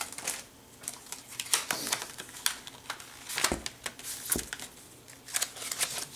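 Paper and plastic die packaging rustling and crinkling as a set of thin metal cutting dies is handled and slid out of its sleeve, with scattered small clicks and two dull knocks near the middle.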